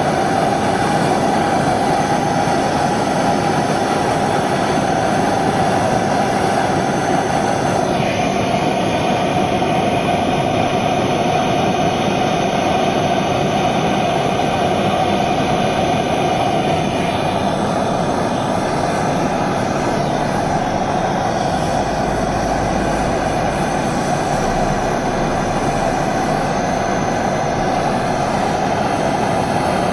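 Gas blowtorch flame burning steadily, heating a copper pipe joint before soldering.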